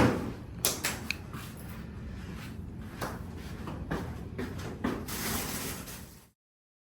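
Faint rustling with a few small scattered clicks and knocks of handling and movement, then the sound cuts off abruptly about six seconds in.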